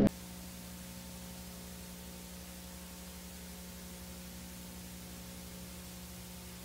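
Steady static hiss with a faint low hum underneath.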